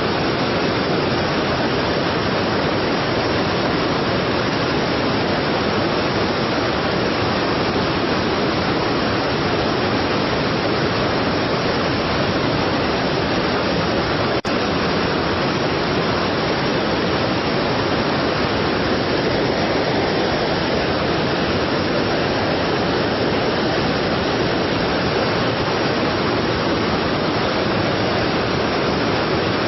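Strong waterfall: a loud, steady rush of falling water, with a single brief click about halfway through.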